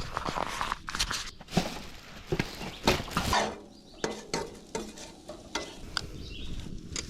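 Food sizzling in a pan over a wood fire, with irregular clinks and scrapes of a metal utensil against the cookware.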